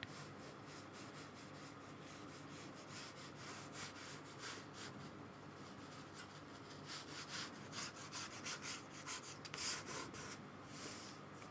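Paintbrush strokes on paper, laying on paint in a faint run of short brushing and scratching sounds that grows busier and a little louder in the second half.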